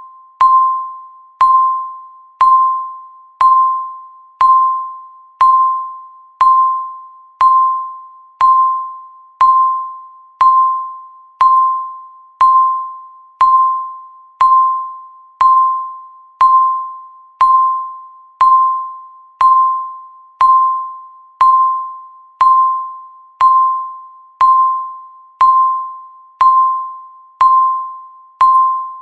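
Countdown timer's electronic tick: a sharp, clear-pitched ping once every second, each one fading away before the next.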